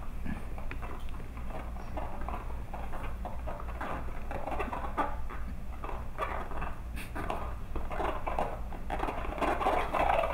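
Cocker spaniel puppies' paws pattering and scrabbling on a tile floor as they push a spiky inflatable rubber ball, with scuffs and rubbing squeaks from the ball. The taps and scuffs come thick and irregular, busiest near the end.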